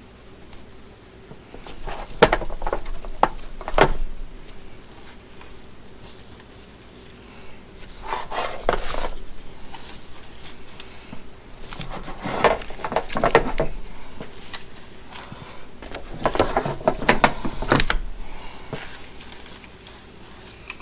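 Husky ratchet straps being handled and stuffed into their storage bags: the metal ratchet buckles and hooks clink and rattle in four bursts, with the straps and bags rustling.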